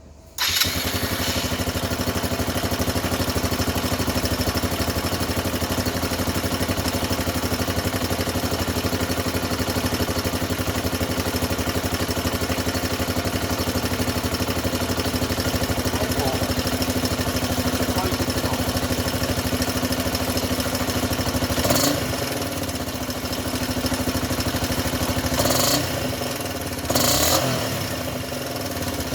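Suzuki DF125/Djebel 125 single-cylinder four-stroke engine starting about half a second in and then idling steadily, freshly refilled with oil; a few short rises in engine sound come in the last third.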